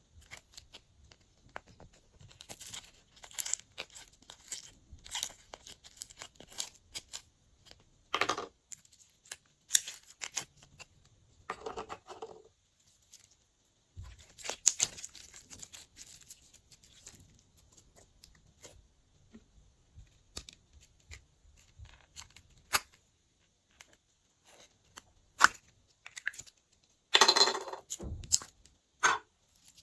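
Glossy slime worked by hand, giving off irregular sticky clicks and crackles with a few longer squelching crackles.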